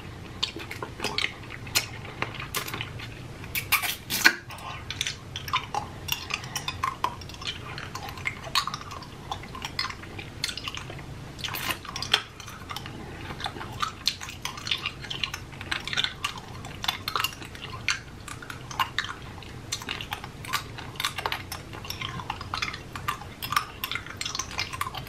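Close-up mouth sounds of someone eating hard candy cane: frequent irregular clicks of the candy against teeth, with small wet smacks and sucking.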